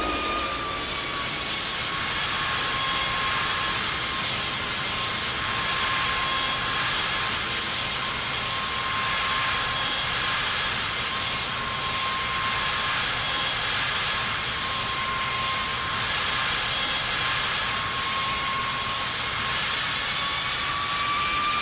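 Airplane engines running with a steady whine over a loud, even rush of noise. The whine dips slightly in pitch at the start and climbs again near the end.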